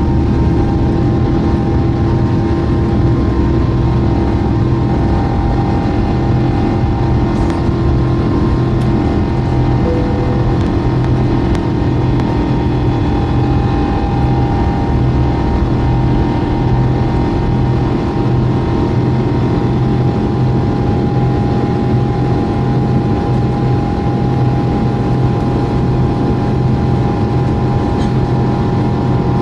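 Airbus A350-XWB jet airliner's Rolls-Royce Trent XWB engines running at high, steady power during takeoff, a loud, constant rumble with several steady fan tones over it.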